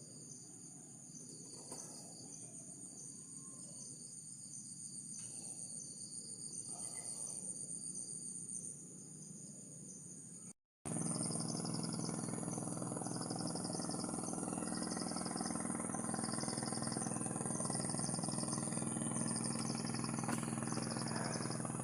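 Insects, crickets among them, calling steadily in high-pitched tones. After a sudden break about halfway through, the calls turn into a pulsing trill about once a second, over a steady engine hum.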